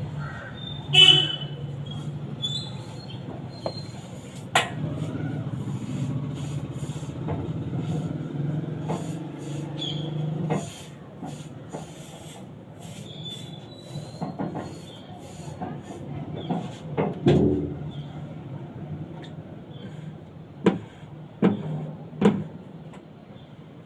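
A steady low hum that stops abruptly about ten seconds in, with a short loud sound about a second in and scattered sharp knocks and scrapes throughout, several of them close together near the end.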